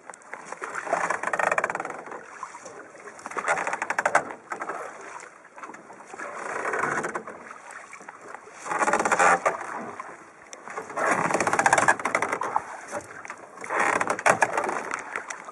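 Water splashing and gurgling along the hull of a small sailing boat. It swells and fades about every two and a half seconds, six surges in all, as the boat rides the swell.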